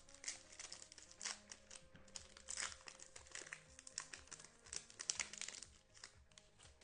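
A trading-card pack wrapper being torn open and crinkled by hand, in a run of short, sharp crackles. Quiet background music plays underneath.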